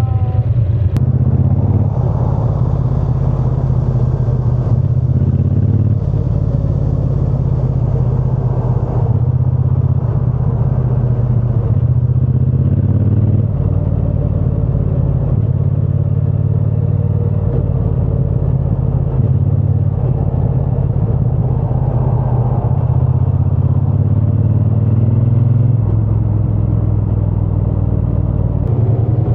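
Triumph Bonneville T120 parallel-twin engine running under way while riding. Its exhaust note is steady and low, and its pitch steps up and down every few seconds as the throttle and gears change.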